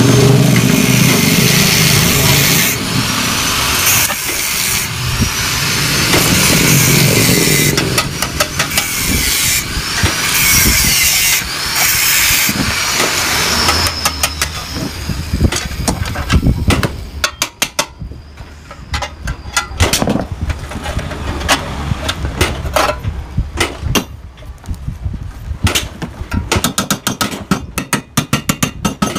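Power tool cutting into a steel motorcycle muffler, a loud grinding noise whose whine rises and falls repeatedly as it bites. About halfway through it gives way to many sharp metal knocks, coming in quick runs.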